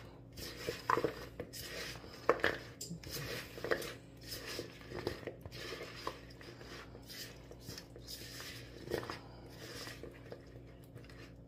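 A spatula scraping and knocking against a plastic mixing bowl as French fries are stirred and tossed in a thick sauce to coat them: soft, irregular scrapes and clicks.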